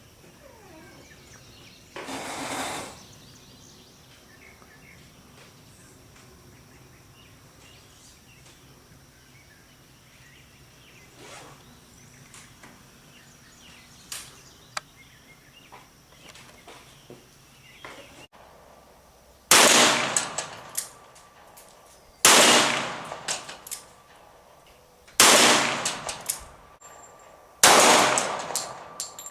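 Four loud gunshots in the last third, spaced about two and a half to three seconds apart, each cracking sharply and then dying away in a long echo. Before them there is quiet outdoor ambience with faint clicks and a short rush of noise about two seconds in.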